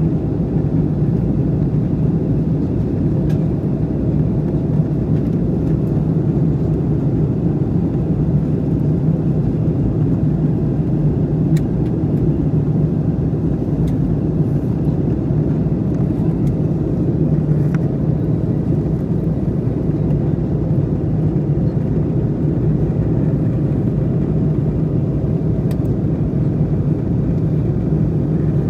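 Steady cabin noise inside an Airbus A321 in flight: a low, even roar of the engines and the airflow past the fuselage, with a deep hum running through it.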